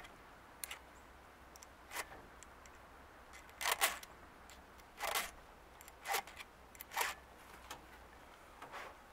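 Hand file rasping across chainsaw chain cutters as the chain is sharpened: short separate strokes, about one a second and a little uneven.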